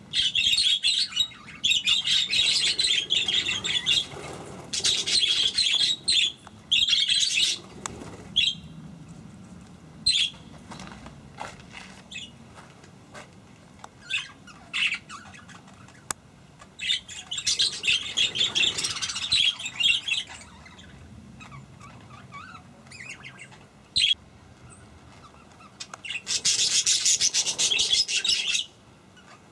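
A flock of budgerigars chattering and warbling in bursts of dense, high chirping, with scattered single chirps in between. The busiest bursts fall in the first few seconds, around the middle, and again shortly before the end.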